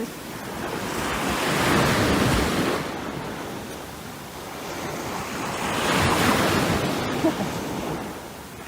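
Waves washing in: a rushing noise that swells and fades twice, about four seconds apart.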